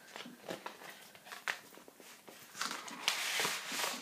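Paper rustling as a sheet of stick-on name labels is drawn out of its envelope and handled: scattered small crackles and taps, then a longer rustle about three seconds in.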